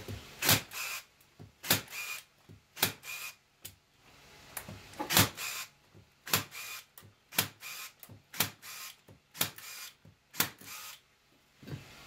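Corded electric staple gun firing staples through wire mesh into a pine frame: about ten sharp snaps, roughly one a second, each often followed by a softer click.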